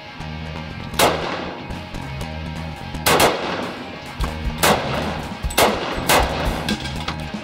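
About six shots from an STI pistol chambered in 9x25 Dillon, fired singly at uneven intervals, each sharp and loud. A steady music bass line runs underneath.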